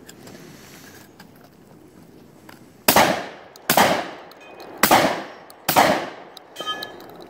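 Four gunshots from a competitor's rifle, about a second apart, each echoing off the range berms. They are followed near the end by a brief metallic ring.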